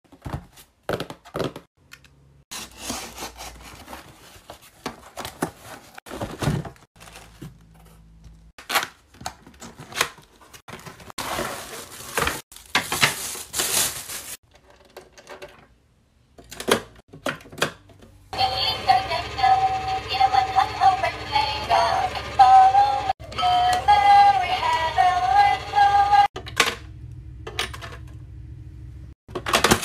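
Cardboard box and plastic toy piggy bank being handled: scattered clicks, taps and rustles. About two-thirds of the way in, the electronic piggy bank's built-in chip plays a synthesized tune for about eight seconds.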